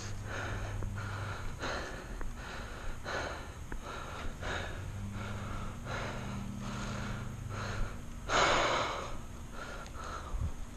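A person's quick, heavy breathing close to the microphone, in a steady run of breaths, with one louder breath about eight seconds in.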